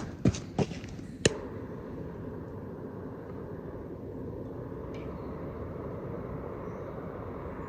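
Three sharp knocks close together about a second in, then a steady low background rumble.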